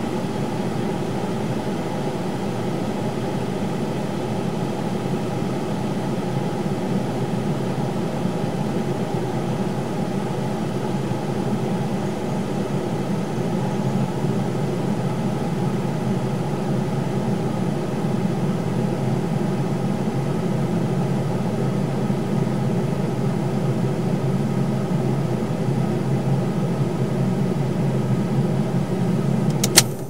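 Car heater blower fan running steadily, heard from inside the cabin: an even, low hum. A single sharp click comes near the end.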